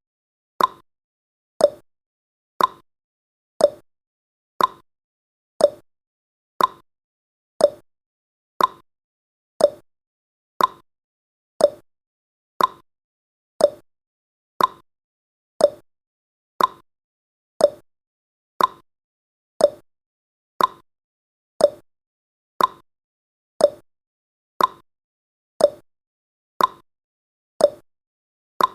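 Clock-tick sound effect ticking once a second, alternating a higher tick with a lower tock, marking each second of a countdown timer.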